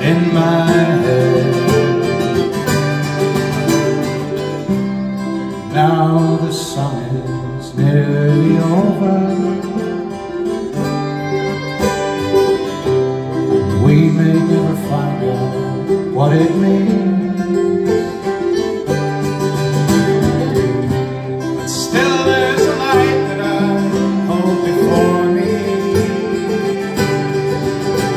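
Live Irish folk band playing an instrumental passage of a slow ballad: fiddle over strummed acoustic guitars, heard through a concert PA.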